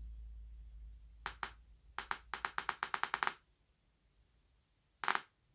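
Sharp clicks and taps from handling a loudspeaker's parts: two single clicks, then a quick run of about ten at roughly eight a second, and one more knock near the end.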